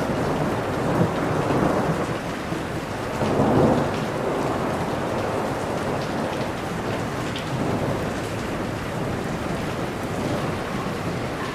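Steady rain with low rolling thunder that swells twice in the first few seconds, the second swell the loudest, then steady rain.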